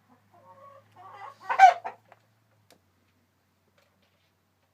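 Chickens clucking softly, then one short loud squawk about one and a half seconds in, followed by quiet.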